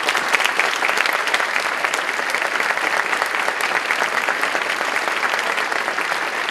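Large audience of students clapping, a dense, steady round of applause.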